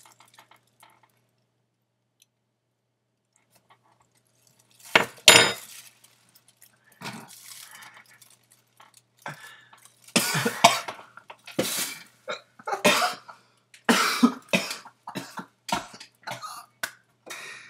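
A person coughing hard and repeatedly, the cough of someone who has taken a spoonful of ground cinnamon in the cinnamon challenge. Two sharp coughs come about five seconds in, then a fit of harsh coughs from about ten seconds on.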